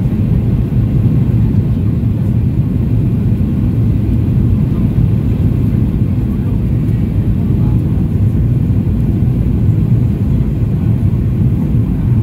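Steady low rumble inside the cabin of a Boeing 737-800 on approach, heard from a window seat over the wing: its CFM56-7B turbofans and the airflow over the extended flaps.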